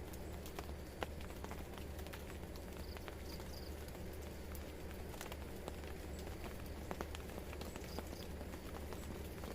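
Rain falling steadily, with irregular drips and taps landing on a plastic tarp shelter over an even rain hiss.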